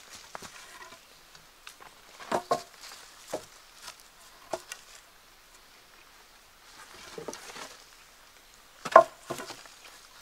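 A few irregular sharp knocks and taps, the loudest about nine seconds in, with a soft rustle between them.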